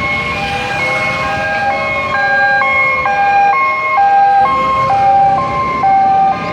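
Fire truck sirens: loud two-tone hi-lo sirens switching pitch about twice a second, overlapping another siren that slowly rises and falls. They grow louder past the middle and drop off sharply just before the end.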